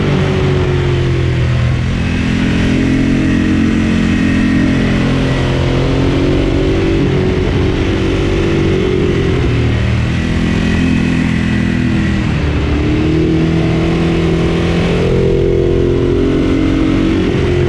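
Ducati Monster 1200 S's L-twin engine under way, the revs climbing and dropping back again and again every couple of seconds as the rider opens and closes the throttle.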